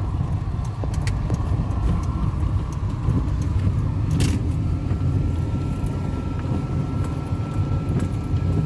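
Car driving along, a steady low rumble of engine and road noise with a faint steady whine and a few small clicks and rattles.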